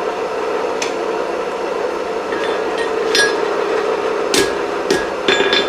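A few scattered hammer strikes on a ringing steel anvil, mostly in the second half, over a steady hum.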